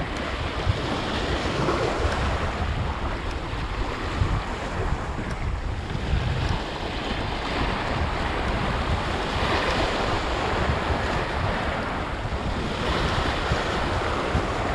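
Sea surf washing and breaking over shoreline rocks, swelling every few seconds, with wind buffeting the microphone.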